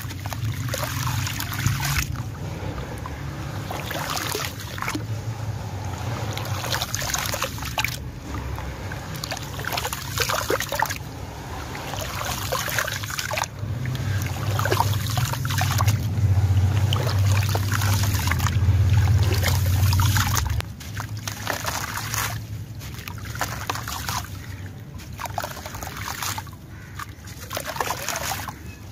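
Sand-cement chunks crumbling in hands into a basin of water: gritty crackling, trickling and sloshing as the wet grit is squeezed and stirred. A low steady hum underneath cuts off suddenly about two-thirds of the way through.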